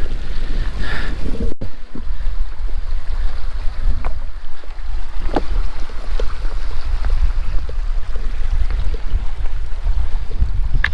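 Wind buffeting the microphone: a loud, gusting low rumble with a thin hiss above it. It breaks off for an instant about a second and a half in.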